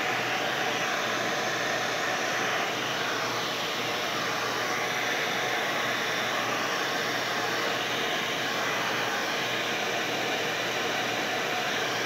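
DevaCurl blow dryer with its hand-shaped diffuser attachment running steadily, a constant even blow of air.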